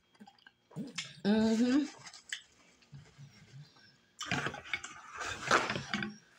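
Wet mouth sounds of eating chitterlings by hand: scattered smacks and clicks, with a short rising hum from the eater's voice about a second in. A longer stretch of noisy crackle and rustle comes in the second half.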